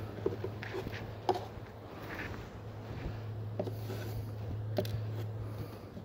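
Clothing rustling and scratching against a phone microphone carried in a pocket, with scattered light clicks and knocks. Underneath runs a steady low hum that grows stronger about halfway through.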